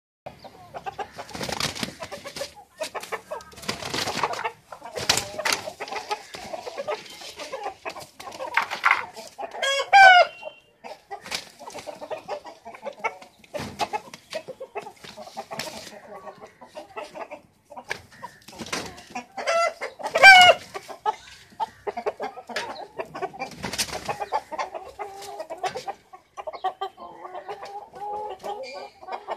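Chickens clucking, with two loud short calls about ten and twenty seconds in.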